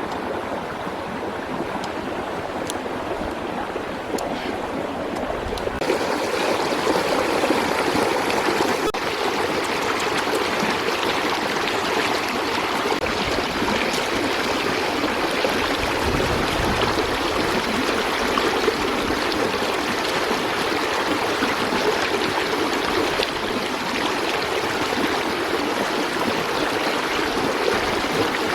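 Steady rushing of running water, which gets louder about six seconds in and then holds even.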